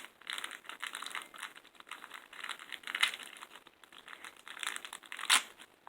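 Plastic toy wrapping crinkling and rustling as a packet is opened, with a sharper crackle about five seconds in.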